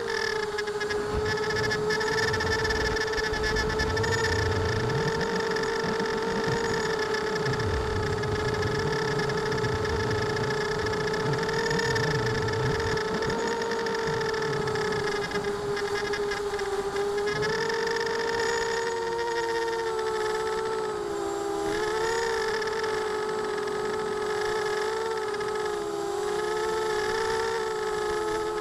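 ImmersionRC Vortex racing quadcopter's brushless motors and propellers whining steadily, heard from the onboard camera, the pitch wavering up and down as the throttle changes, with several quick dips in the second half.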